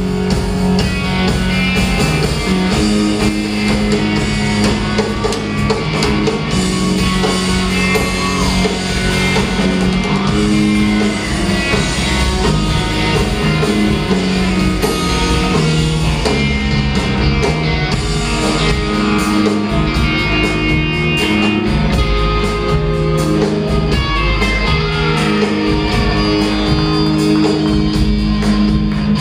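Live rock band playing: electric guitars, bass guitar and drum kit, heard from far back in the hall.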